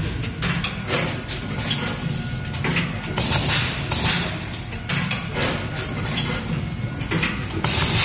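Automatic wire stripping, twisting and soldering machine running its cycle: a steady low hum with short hisses of air every few seconds from its pneumatic actuators.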